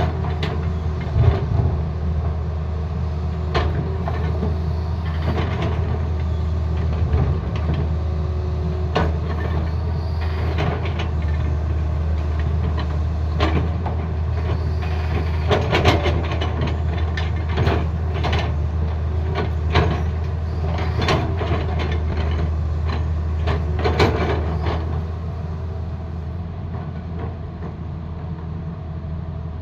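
Tata Hitachi excavator's diesel engine running steadily, with frequent sharp clanks and knocks as the machine works; the engine gets somewhat quieter near the end.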